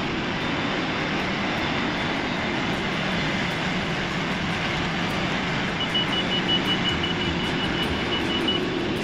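Diesel tractor engine running steadily under work as the loader tractor pushes into brush and backs out. A high, evenly repeated beeping comes in about six seconds in.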